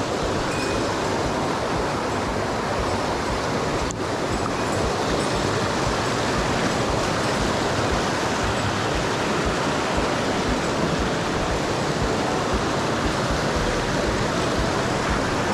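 Mountain stream water rushing steadily over rocks, with a brief break about four seconds in.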